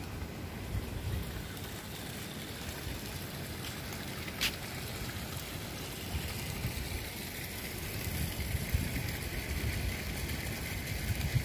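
Water splashing from a tiered stone garden fountain into its basin, a steady hiss that grows louder about seven seconds in. Low wind rumble on the microphone underneath, with a single sharp click about four seconds in.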